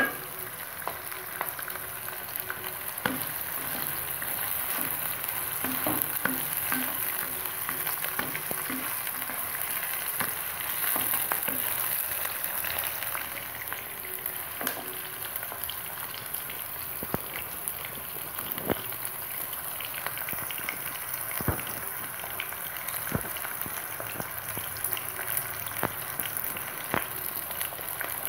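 Sliced onions sizzling steadily as they fry in oil in a karahi, stirred with a ladle that now and then clicks and scrapes against the pan.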